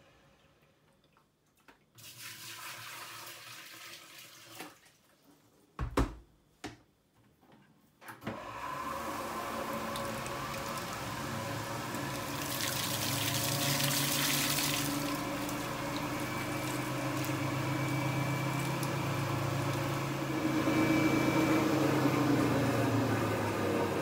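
A vintage Hoover single tub washing machine pumping its rinse water out through the outlet spout into a stainless steel sink: a steady motor hum with water gushing and splashing, starting about eight seconds in. It comes after a few sharp knocks as the spout is handled.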